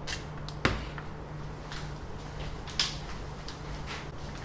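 A few light knocks and clicks of objects being handled, over a low steady hum; one sharper knock comes just under a second in, and a brief rustle or hiss a little before the three-second mark.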